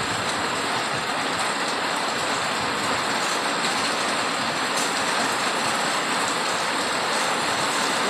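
Heavy rain driven by strong squall wind, a steady dense hiss of rain with no let-up.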